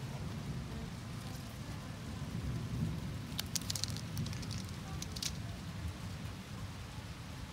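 Rain falling in a thunderstorm, with a steady low rumble throughout. A cluster of sharp ticks comes about three to five seconds in.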